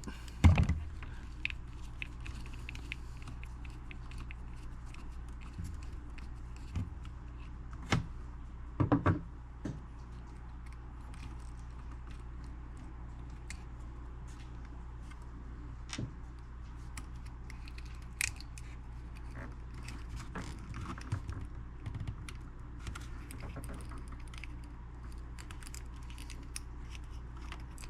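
Scattered small clicks, ticks and scrapes of a screwdriver working a tiny screw and a small circuit board out of a stereo's metal front panel, a few of them louder, over a steady low hum.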